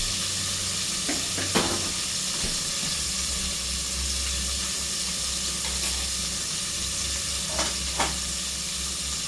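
Chicken wings frying in hot oil: a steady sizzle, with a few short sharp ticks about one and a half seconds in and again near the end.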